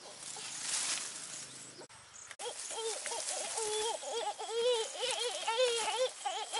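A young monkey calling over and over in short wavering cries, starting after a short break, with rustling of leaves and branches before it.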